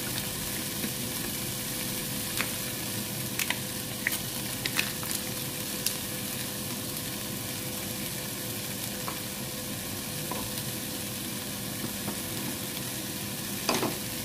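Eggplant, red onion and cherry tomatoes with tomato paste sizzling in oil in a frying pan: a steady sizzle with scattered sharp pops and a faint steady hum underneath.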